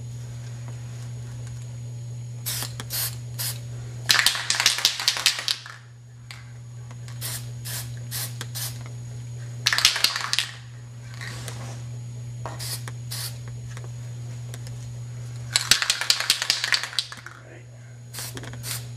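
Aerosol spray paint can spraying in three short bursts, each a hiss, with small clicks between them over a steady low hum.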